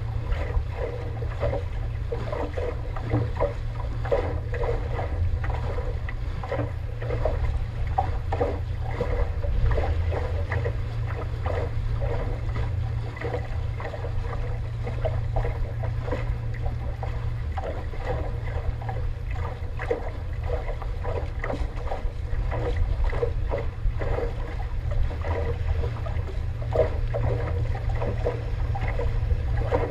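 Water rushing and slapping along the hull of a J/100 sailboat as it sails heeled over, in irregular splashes, over a steady low rumble of wind on the microphone.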